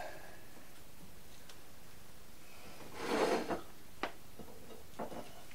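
Crisp toasted sandwich and its plate being handled: a short rustling scrape about three seconds in, a sharp click a second later, and a few light knocks near the end.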